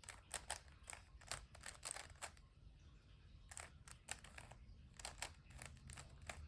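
Plastic 3x3 speed cube being turned by hand: faint, quick, irregular clicks of the layers snapping round, in two spurts with a pause of about a second between them.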